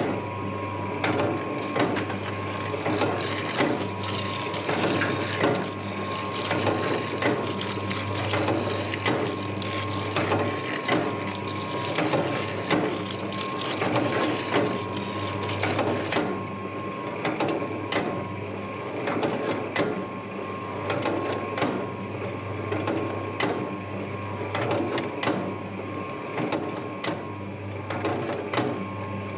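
Electric dough mixer running steadily with a low motor hum, and irregular knocking as the dough turns and slaps in the bowl. It starts up suddenly.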